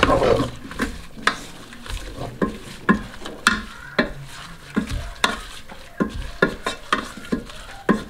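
Wooden spatula knocking and scraping against the nonstick inner pot of a Mito R5+ digital rice cooker, stirring bok choy as it stir-fries, with a light sizzle underneath. The strokes come in an uneven rhythm, about two or three a second.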